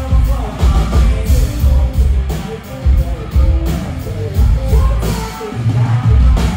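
Live country-pop band with a lead singer, playing loud over a heavy, pulsing bass and drum beat.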